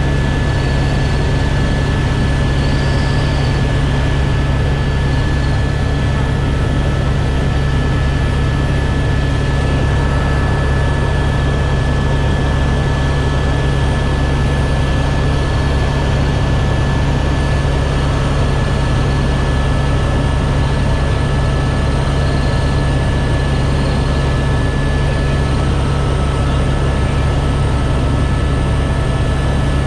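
Helicopter in flight: a loud, unchanging drone of rotor and engine, with steady high whining tones over it.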